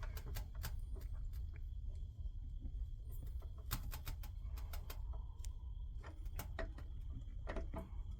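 Scattered light clicks and taps of a screwdriver and wire on the terminal screws of an electric water heater's lower heating element, over a steady low hum.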